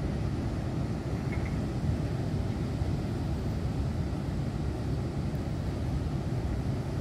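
Wind buffeting the phone's microphone: a steady, uneven low rumble with no other distinct sound above it.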